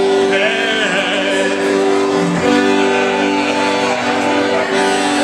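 Accordion playing held, sustained chords with a voice singing along. The music cuts off shortly before the end.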